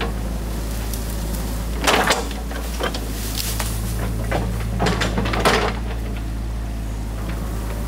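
Excavator engine running steadily with a low hum, with several short metallic clanks and rattles from the machine as its arm and bucket move: one about two seconds in and a cluster around five seconds.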